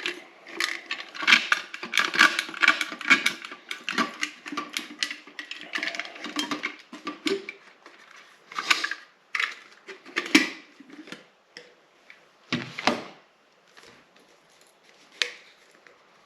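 Quick clicks, taps and rattles of hand tools and small parts being handled, dense for the first half, then thinning to a few separate knocks.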